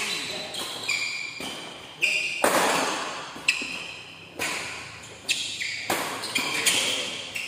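Badminton rally: rackets striking a shuttlecock back and forth, a sharp hit about once a second, each ringing on in the hall's echo. Between hits, shoes squeak briefly on the court floor.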